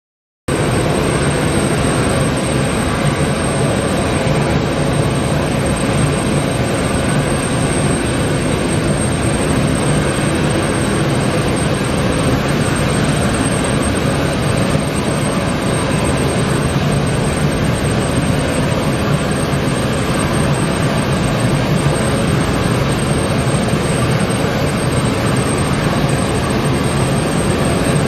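Ilyushin Il-76TD-90VD's jet turbines running at a steady idle: a loud, even rushing noise with a constant high whine over it. It starts abruptly just after the opening second and holds without rising or falling.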